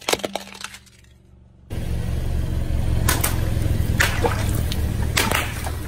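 Water balloons bursting under a slowly rolling car tyre, several sharp pops with splashing water, over the car's low steady running. Near the start, a few clicks as a plastic toy is crushed under the tyre.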